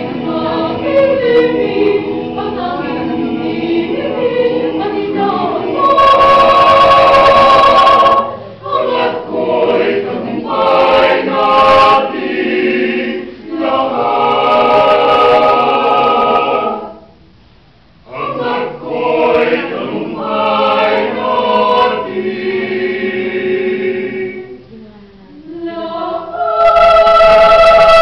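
University chorale singing, its phrases ending on loud held chords. The singing breaks off briefly about two-thirds of the way through.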